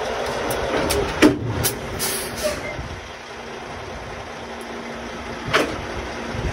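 Semi-truck tractor's diesel engine running as it backs slowly under a trailer to couple up. A sharp clunk comes about a second in and another about five and a half seconds in.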